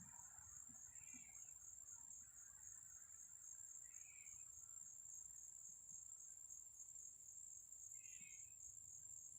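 Faint, steady, high-pitched trill of crickets, with a short faint chirp about every three to four seconds.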